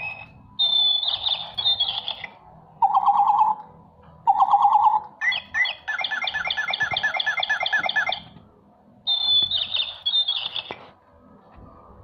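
Toy caged bird chirping and warbling in short separate phrases, with a longer fast repeating trill in the middle.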